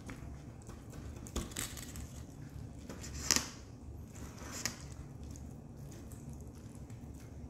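Tabletop handling noise: a few brief crinkles and clicks, the loudest about three seconds in, over a low steady hum.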